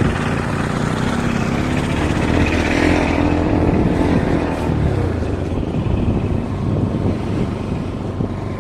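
Motorcycle engine running on the move, its pitch rising about two seconds in and easing back down around five seconds, under a steady rushing noise.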